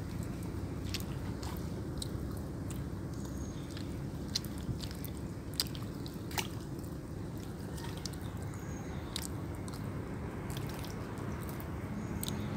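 Steady low outdoor background rumble with scattered sharp clicks and ticks.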